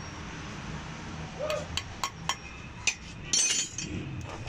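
Small steel parts of an inline diesel injection pump clicking and clinking as they are fitted into the pump housing by hand: a few sharp metallic clicks, then a brief clinking rattle about three seconds in.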